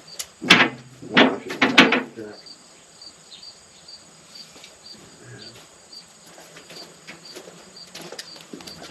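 A few sharp knocks in the first two seconds, then insects chirping faintly in a steady rhythm of about two to three chirps a second.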